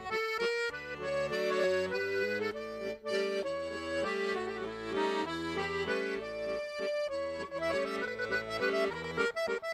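Background music led by an accordion: held chords over a regular bass beat.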